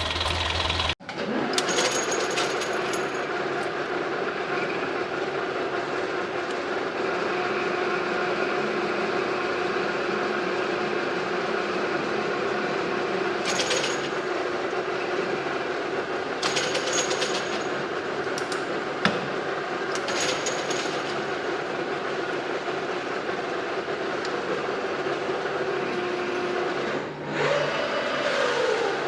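Electric motors of an RC toy excavator whining steadily as it works, with a few short rattles and a brief rise and fall in pitch near the end.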